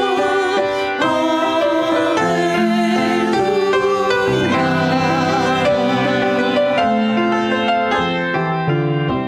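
Piano playing a hymn introduction, with a sustained, wavering melody line held above the chords.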